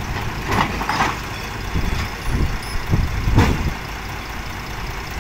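Kobelco SK200 crawler excavator's diesel engine running as the machine drives its steel tracks up onto a lowboy trailer, with a few clanks from the tracks on the trailer deck over the steady engine rumble.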